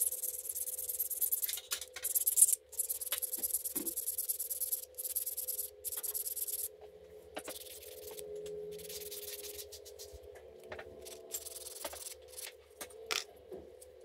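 Quick rubbing strokes on a small hard part, strong in the first half and fainter later, with scattered light clicks, over a steady low hum.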